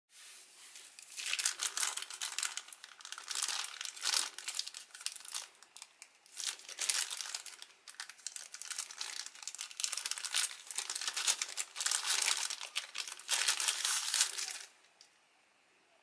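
Thin clear polyethylene bag crinkling in the hands as it is handled and opened to take out a USB cable, in uneven bursts that stop about a second before the end.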